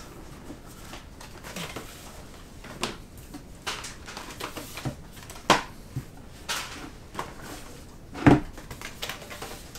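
Thick cardboard player boards and a folded game board being handled and laid down on a wooden table: scattered soft rustles and taps, with one louder thump near the end.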